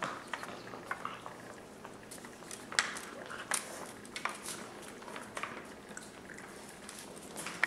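English Bulldog puppies moving about on a tile floor: irregular clicks and taps of paws and claws, with some wet, smacking mouth sounds.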